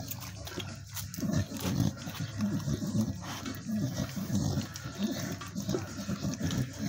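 Staffordshire bull terrier eating roast beef from a bowl: quick, irregular wet chewing and licking sounds, a few a second.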